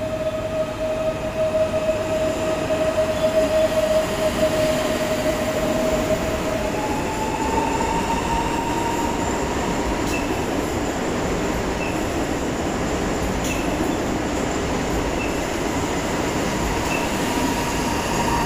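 PKP Intercity ED161 Dart electric multiple unit moving along an underground platform: steady rumble with a whine that steps up in pitch about seven seconds in. Faint ticks come at regular intervals in the second half.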